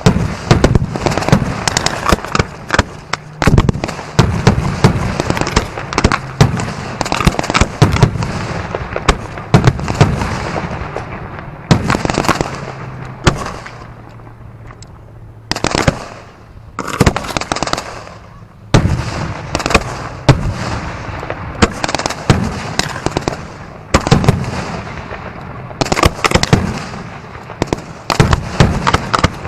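Fireworks barrage: a rapid, dense run of sharp bangs and crackles, easing to a brief lull about halfway through and then building up again.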